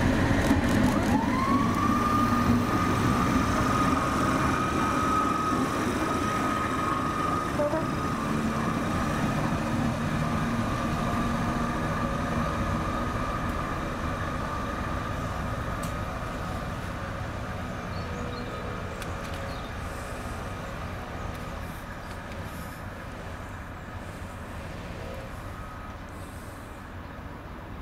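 GBRf Class 73 electro-diesel locomotive 73107 pulling away. A whine rises in pitch about a second in and then holds steady over a low running rumble, the whole sound fading gradually as the locomotive draws off.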